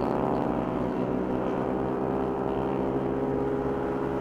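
Bored-up Yamaha NMAX scooter's single-cylinder engine running at a steady cruising speed, a steady drone with no rise or fall in pitch.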